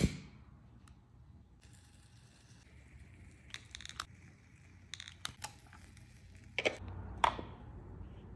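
Quiet handling sounds: a sharp click at the very start as a lighter flame is struck, then scattered light clicks and soft crinkling. Near the end come a few louder clicks as metal tongs work in a small incense burner.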